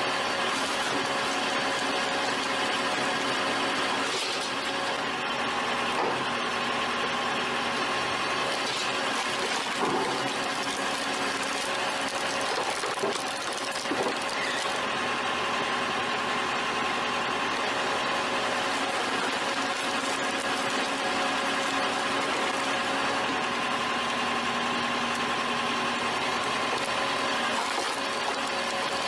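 Hydraulic firewood splitter running with a steady mechanical hum from its drive, with a few knocks and cracks as the ram forces log rounds through the splitting grid.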